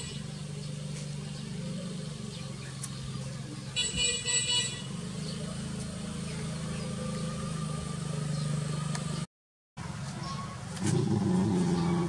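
A motor vehicle running steadily with a low hum, and two short honks of a horn, one at the start and one about four seconds in. The sound drops out for half a second about nine seconds in, and a louder low rumble comes in near the end.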